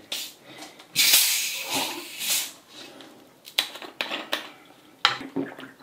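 A plastic bottle of sparkling water being twisted open. About a second in, the escaping carbonation gives a sudden sharp hiss that fades over a second or so, followed by a few sharp clicks.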